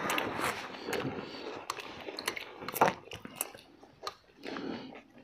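Close-up mouth sounds of people eating beef intestine soup with rice: chewing and wet smacks, with scattered sharp clicks and the loudest click a little past the middle.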